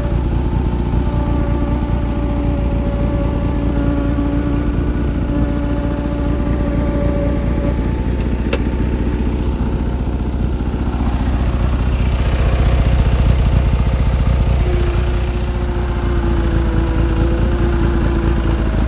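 Bolens GT1800 garden tractor's engine running steadily, its note shifting slightly about twelve seconds in.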